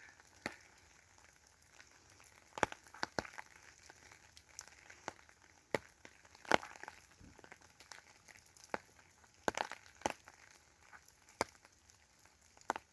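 Faint, irregular crackles and sharp clicks, roughly one a second, over a quiet background.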